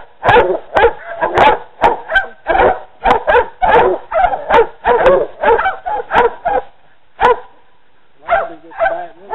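Hog-hunting dogs baying at a hole under a brush pile: loud, rapid barks, about two to three a second. They break off briefly to a single bark and a short pause, then start again near the end.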